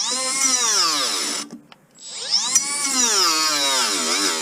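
Milwaukee M12 cordless cutting tool run in two bursts, its motor whine climbing and then sagging in pitch each time as the blade loads up. The tool bogs down in the cut: it has no power, possibly from the wrong blade or weak batteries.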